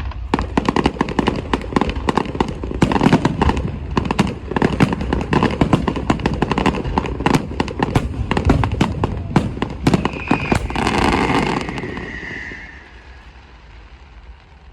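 Aerial fireworks going off in a dense, rapid barrage of bangs and crackles. The bangs stop about eleven seconds in and a short hissing tail fades away.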